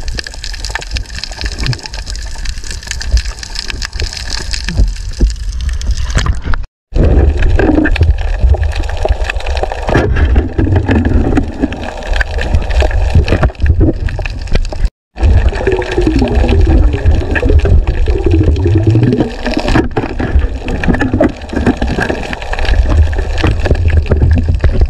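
Gurgling and rumbling of water heard through an underwater camera housing, cutting out briefly twice.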